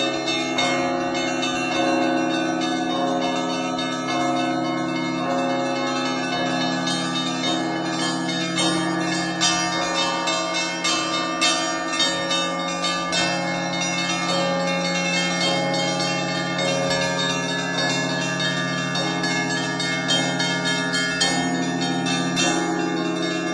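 Russian Orthodox monastery church bells rung together: many bells of different pitches struck in quick succession, with the deep tones of the large bells ringing on steadily beneath them.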